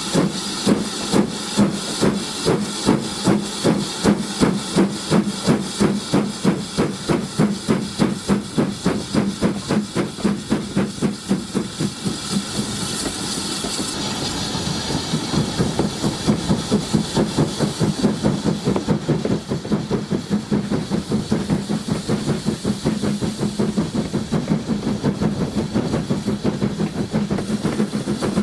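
BR Standard Class 4 2-6-4T tank locomotive 80080 working a train under steam, its exhaust beating evenly from the chimney with a steady hiss, heard close from the leading carriage. The beats fade for a few seconds about halfway through, then come back quicker as the train gathers speed.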